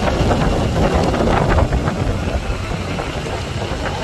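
Strong wind buffeting the microphone over a fishing boat's engine running steadily, with choppy waves slapping the hull. A few short clatters sound about a second in.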